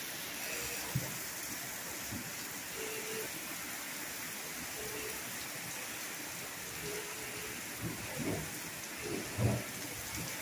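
Steady rain falling in a thunderstorm, with a few short low thumps, two of them close together near the end.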